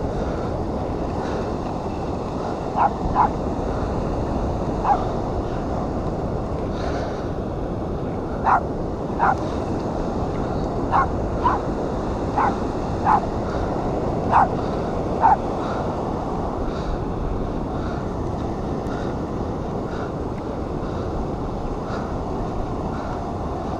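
Steady surf and wind noise on an open beach. Over it come about a dozen short, sharp calls, spread between about three and fifteen seconds in.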